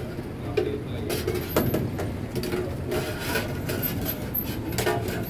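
Several clinks and knocks of a metal ladle and tongs against a steel cooking pot as boiled corn kernels are scooped out, over a steady low background rumble.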